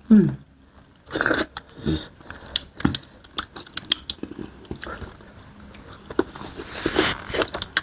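Close-miked eating: chewing, biting and wet mouth smacks and clicks, irregular throughout, from people eating starch fufu with banga soup and smoked chicken.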